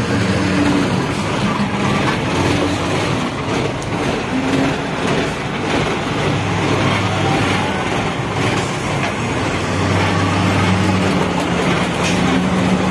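Mitsubishi Fighter truck's diesel engine running steadily, heard from inside the cab.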